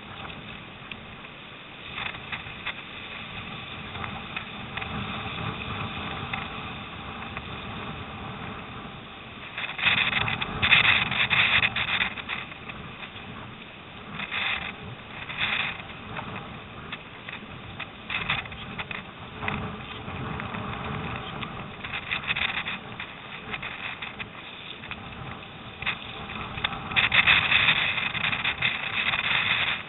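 Rushing wind and water noise from a surfski running downwind through storm chop: a steady rush of gusts on the microphone and water along the hull that swells into louder surges about four times.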